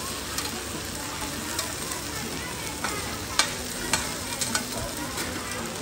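Cubes of carrot cake (radish cake) sizzling in oil on a wide, flat pan. Metal tongs and a spatula clink and scrape against the pan several times as the cubes are turned, with the loudest clink a little past the middle.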